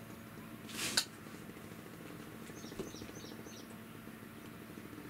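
A bird chirping: a quick run of short, high chirps around the middle, over a low steady outdoor background. About a second in there is a brief hiss that ends in a click.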